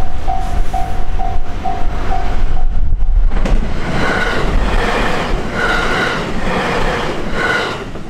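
Level-crossing warning bell dinging about twice a second, drowned out about three seconds in by an electric commuter train passing close by. The train's wheels and motors make a loud rushing clatter that swells in pulses about once a second and drops away near the end.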